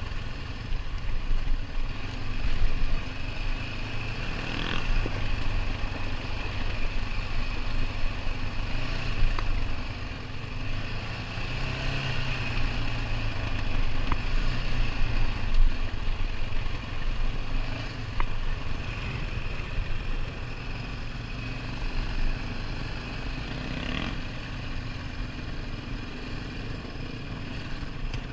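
ATV engine running steadily while riding a trail, its pitch rising and falling a little with the throttle, with a few short knocks from the machine over rough ground.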